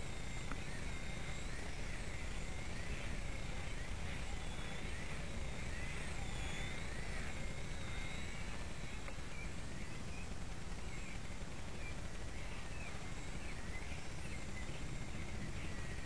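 Blade Nano micro RC helicopter in flight, doing flips and inverted half circles: a thin, high motor and rotor whine that repeatedly swoops up and down in pitch as it manoeuvres, over a steady low rumble.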